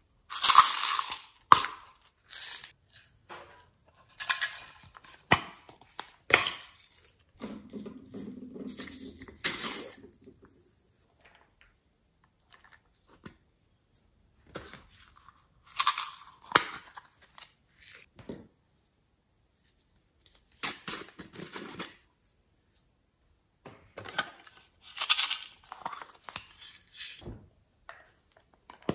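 Hands handling and squeezing rubber squishy toys: irregular bursts of crackly, crinkly rubbing with quiet gaps between, and a lower-pitched rubbing sound for a couple of seconds about eight seconds in.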